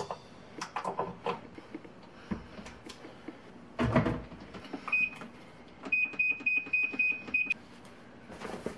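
Washing machine control panel beeping as its buttons are pressed: one short beep about five seconds in, then a quick run of about six more. Before that, soft knocks and rustling from handling laundry, with one louder thump about four seconds in.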